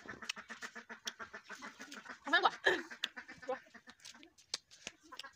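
A duck quacking: two loud quacks about halfway through. Under them runs a fast, soft crunching of close-up chewing on crisp fruit.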